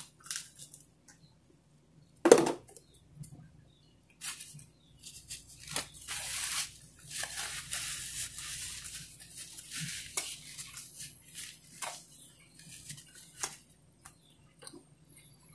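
A sharp knock about two seconds in, then irregular rustling, scraping and light clatter of things being handled.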